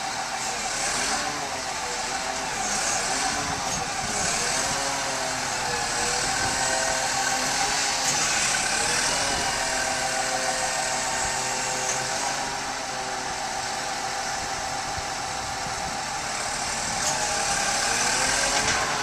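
Caterpillar 12M VHP motor grader's diesel engine running, its note rising and falling repeatedly as the revs change.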